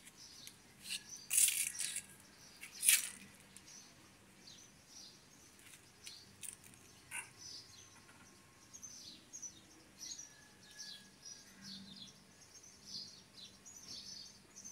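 Small birds chirping over and over, quick high chirps that drop in pitch. Two louder, brief noises about one and a half and three seconds in.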